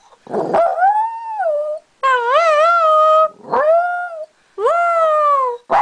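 Maltese dog howling, its 'singing': four long pitched howls in a row, each rising and then falling in pitch, with short breaths between.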